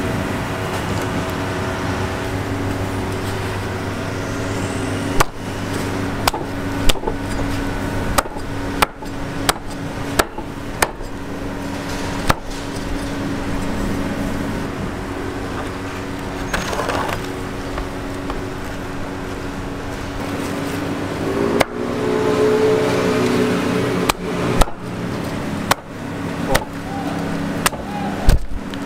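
Steel cleaver chopping grilled chicken on a wooden chopping block: sharp knocks at irregular intervals, in two bunches, over a steady hum.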